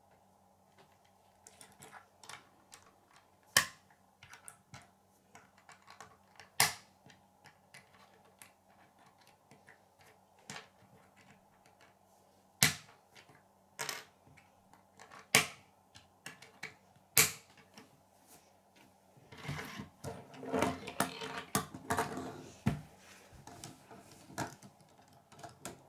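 Plastic K'nex rods and connectors clicking as they are snapped together, about six sharp clicks spread out among smaller ones. Near the end, a few seconds of denser plastic rattling and clicking as the part is handled and pushed onto the model.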